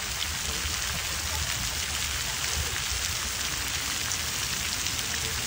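Splash pad ground fountain jets spraying water that patters steadily onto wet concrete, a constant rain-like hiss.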